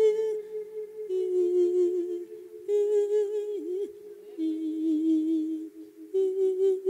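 A Buddhist monk singing an Isan-style sung sermon (thet lae) into a microphone: long, held notes with a wavering pitch, in several short phrases broken by brief pauses for breath.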